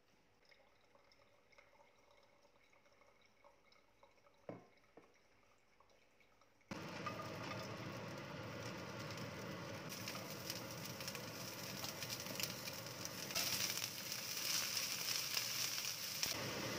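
Sliced onions sizzling in a hot wok, a steady frying hiss that starts abruptly and grows louder late on when the prawns go into the pan. It follows a few seconds of faint counter handling with a small knock.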